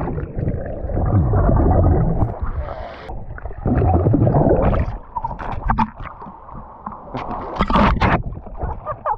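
Swimming pool heard from underwater: muffled bubbling and gurgling as swimmers move and blow bubbles around the camera. Near the end come a few sharper splashes as the camera breaks the surface.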